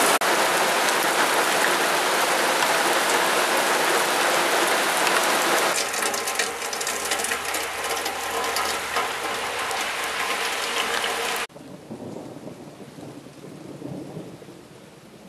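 Heavy downpour splashing onto a muddy, puddled path. About six seconds in a low rumble of thunder sets in under the rain. Near the end the sound cuts abruptly to much quieter rain with a faint rumble.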